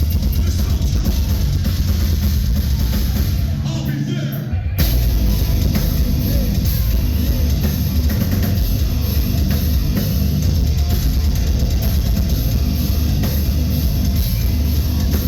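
Heavy metal band playing live: drum kit and loud, dense guitars and bass. The band drops out briefly about four seconds in, then comes back in at once at full volume.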